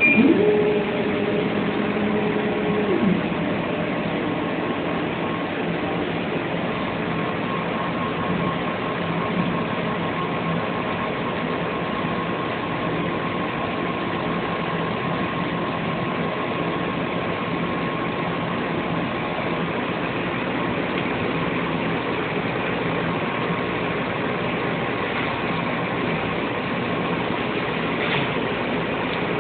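Jeantex laser cutting and engraving machine running with a steady hum. In the first three seconds a motor whine rises, holds and drops off as the head moves. A faint steady high tone follows while it engraves.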